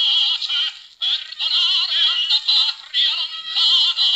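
A singer with a wide vibrato on an old recording of a 1930s Italian propaganda song. The sound is thin, with no bass, and the singing breaks off for a moment about a second in.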